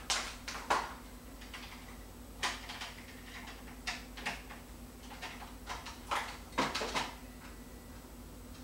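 Sparse light taps and clicks, about a dozen spread irregularly with a small cluster near the end, over a steady low electrical hum.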